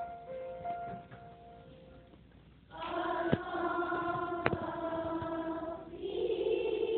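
Children's choir singing. Their voices come in together on a held note about a third of the way in, after a few soft steady tones, and move to a new note near the end. Two sharp clicks sound while the note is held.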